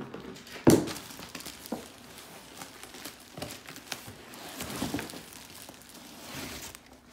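Clear plastic wrap crinkling and a cardboard box rustling as a plastic-wrapped bag is handled inside the box, with a single thump about a second in.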